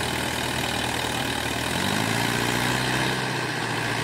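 Mahindra 575 DI tractor's four-cylinder diesel engine running under heavy load, hauling a fully loaded sugarcane trolley. The engine note climbs a little about two seconds in and then holds steady.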